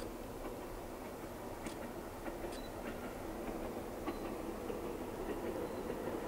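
A train approaching from a distance: a steady low hum that grows slowly louder, with scattered faint clicks.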